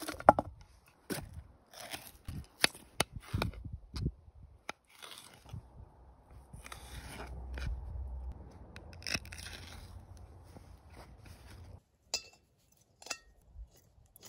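Sliced onion scraped off a wooden cutting board into a metal frying pan, with a loud clatter just after the start. Then a knife cutting through bell peppers on the wooden board in a few crunchy slices, and near the end a couple of sharp clicks as a small gas canister stove is handled.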